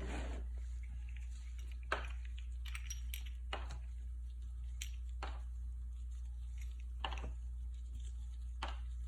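Small hard-plastic toy accessories being handled: a few separate light clicks and taps, about one every second or two, over a steady low hum.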